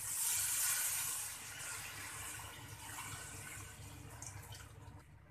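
Water poured from a jug into a cooking pot of fried potatoes and chicken, splashing in steadily. It is loudest in the first second or so and then tapers off as the liquid in the pot rises.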